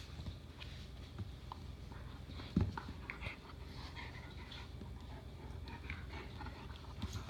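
A four-week-old puppy and a Bernese Mountain Dog play-biting: soft mouthing and scuffling with short high squeaks, and a thump about two and a half seconds in.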